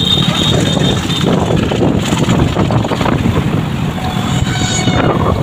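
Motorcycle engine running as the bike rides along, with wind rushing over the microphone.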